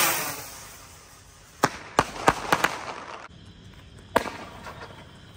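Fireworks: a firework's rushing hiss dies away, then a quick run of sharp cracks and pops comes about a second and a half to three seconds in, with one more crack about four seconds in.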